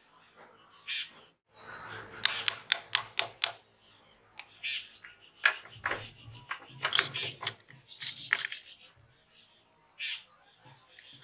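Small metal clicks and clinks as a sewing machine motor is taken apart by hand, a screwdriver working the end-cap screws and the cap coming off the armature: a quick run of sharp clicks about two seconds in, then more clinking through the middle. Short bird chirps in the background.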